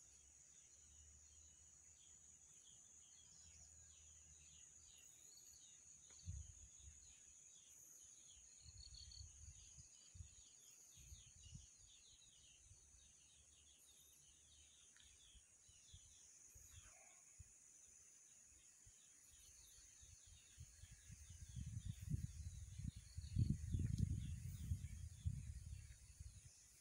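Faint outdoor ambience of insects and birds: a steady high insect drone with many quick repeated chirps over it. Low rumbling bumps on the microphone get louder near the end.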